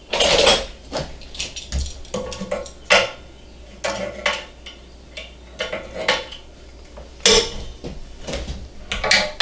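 Metal parts being handled in a workshop: a dozen or so irregular clanks and clinks, some ringing briefly, the loudest right at the start and about seven seconds in.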